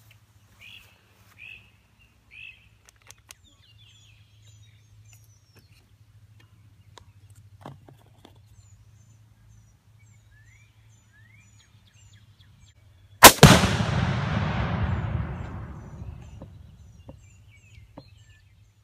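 A single AR-15 rifle shot, followed almost at once by the boom of a Tannerite target exploding downrange; the rumble rolls on and fades over about three seconds. Birds chirp faintly before it.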